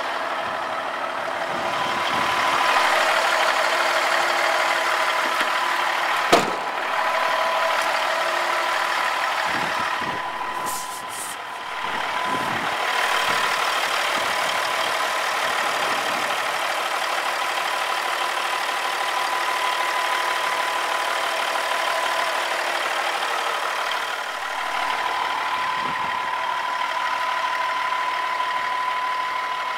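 Caterpillar 3406B inline-six diesel engine of a semi truck idling steadily, with a thin steady whine over it. One sharp click about six seconds in.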